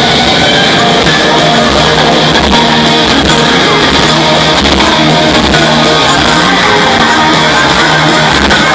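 Live rock band playing loud, with electric guitar and drums, heard from within the audience. The level is very high and even, the sound dense and unbroken.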